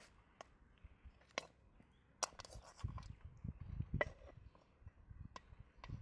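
Kitchen knife cutting raw whole quail and hands handling the carcasses in a metal bowl: scattered sharp clicks, with a run of soft, dull knocks in the middle.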